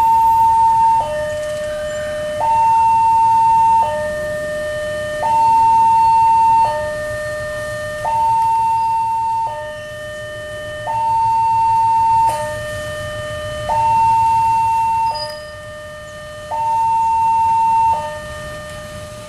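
Two-tone electronic railway warning siren, switching between a high and a low note about every second and a half. Under it runs the low rumble of an approaching diesel locomotive.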